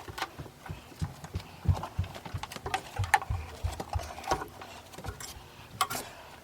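Irregular light knocks and clicks, a couple a second, of hand tools and parts being handled.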